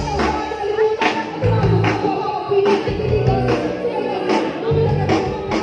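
Live band music: a singer over drums and deep bass notes, amplified through a stage sound system.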